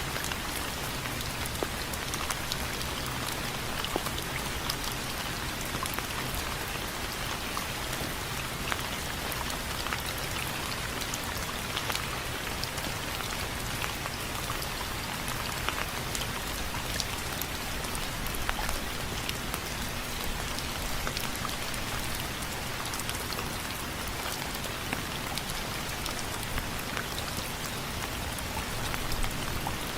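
Steady rain with drops pattering and ticking on a window frame, many small irregular ticks over a continuous hiss.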